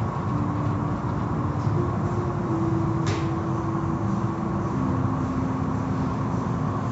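Automatic tunnel car wash running: a steady rumble and rush of spinning cloth brushes and water spray, with machine hums that shift pitch a few times. A single sharp click about three seconds in.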